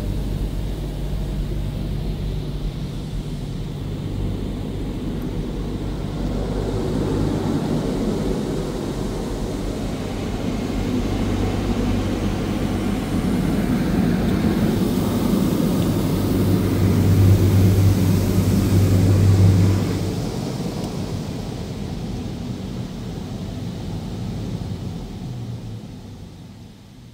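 Touchless automatic car wash heard from inside the car: the machine's motors and pump drone while high-pressure water jets spray over the body and glass. The noise swells to its loudest about two-thirds of the way through, then eases and fades near the end.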